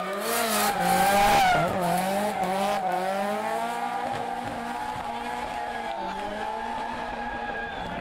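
Nissan Silvia S14 drift car's engine revving hard and changing pitch as it slides, with tyres screeching, loudest about a second in. The engine then holds a steadier high-revving note that slowly grows quieter.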